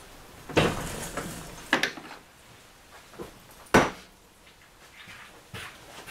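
Steel lathe tooling being handled and set in place as a drill is set up on the lathe: a few separate clanks and knocks with quiet between, the sharpest about two-thirds of the way through.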